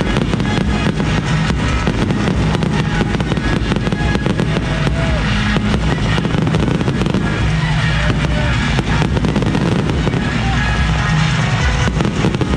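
Fireworks display: a dense, rapid run of bangs and crackles from bursting aerial shells, over loud music.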